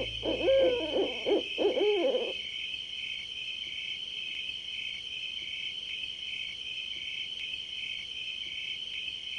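Crickets chirping in a steady, fast pulse. Over the first two seconds comes a run of short animal calls that rise and fall in pitch, and then only the crickets go on.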